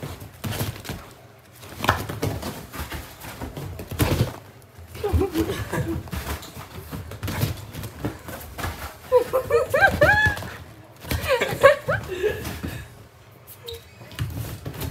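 A puppy's paws thudding on the cushions of a leather sofa as it runs and leaps across them, with repeated thumps, the loudest about four seconds in.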